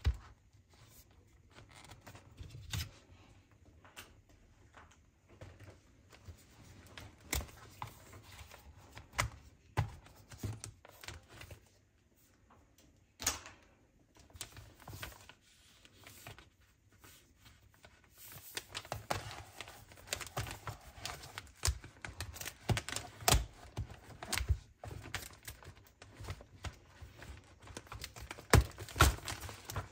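Hands unboxing and handling accessories and their packaging: scattered clicks and taps with some rustling and tearing. Busier and louder from a little past halfway.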